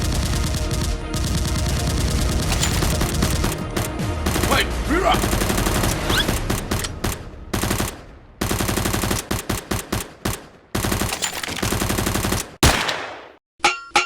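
Rapid automatic gunfire, in the manner of a film sound effect: a dense unbroken stream of shots, then separate bursts with short pauses between them from about halfway. A single loud bang comes near the end.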